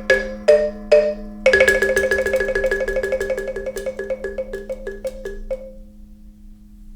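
Struck mallet-percussion notes: three separate strikes, then from about a second and a half in a fast run of repeated short notes that fades out near the end, over a steady low hum.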